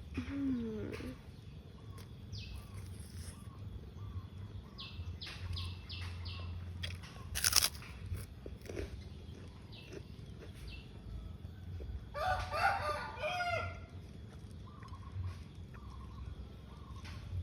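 Chewing and mouth sounds of someone eating beef jerky, with many small clicks throughout and one sharper knock about halfway through. A loud, wavering call sounds for about two seconds near twelve seconds in.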